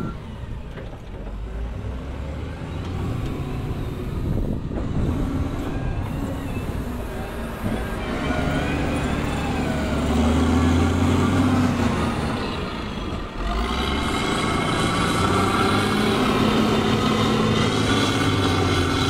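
Wheel loader's diesel engine working. Its pitch and level rise about eight seconds in, dip briefly near the middle, then it runs loud and high under load for the last several seconds.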